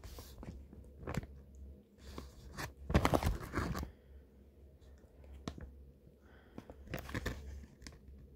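Irregular crinkling and crunching of plastic being handled, in several short spells, the loudest and longest about three seconds in, over a steady low hum.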